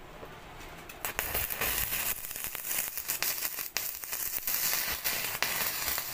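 Stick (arc) welding on mild-steel ribbed rod: the electrode's arc strikes about a second in, then crackles and sizzles steadily as the bead is run.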